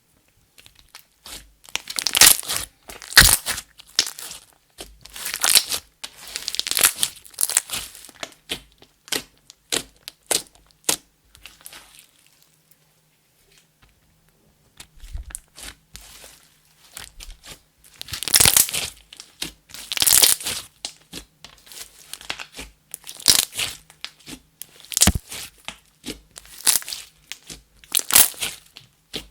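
Slime being kneaded, stretched and squeezed by hand, giving sticky crackling and popping clicks in bursts, with a pause of a few seconds about halfway.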